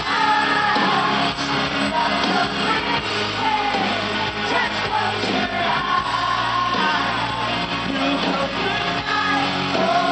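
Rock band playing with singing.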